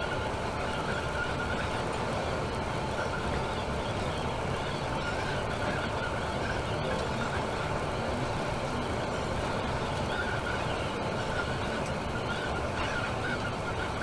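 Temsa Maraton coach travelling on the motorway: a steady, even rumble of engine and road noise, with a faint higher-pitched tone that comes and goes.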